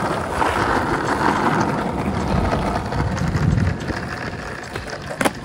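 Skateboard wheels rolling over stone paving tiles, a steady rolling rumble and hiss. Just before the end comes a single sharp clack of the board hitting the ground.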